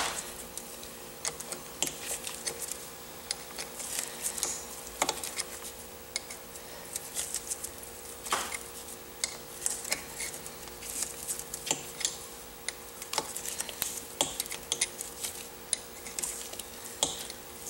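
Light metallic clicks and ticks, irregular and a few sharper than the rest, from a chain breaker tool being worked on a motorcycle cam chain, its screw turned to press a rivet pin out of a link.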